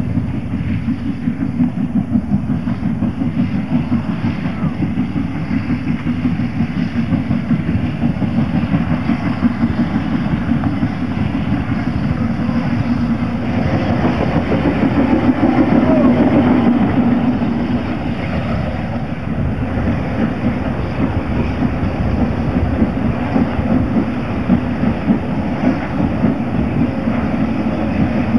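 A narrow-gauge (27.5-inch) sugar-mill steam train running past, with a continuous fast clatter that is loudest about halfway through.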